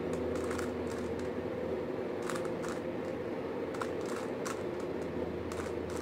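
Plastic 3x3 Rubik's cube being turned by hand, its layers giving scattered light clicks as the white cross is built, over a steady hum.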